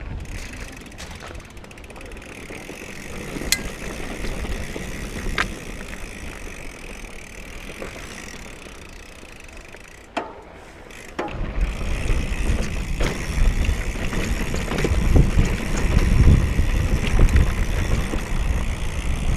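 Mountain bike being ridden on a dirt trail: tyre and drivetrain noise with a few sharp clicks and rattles, which about eleven seconds in turns into a much louder, steady low rumble of trail noise as the bike picks up speed.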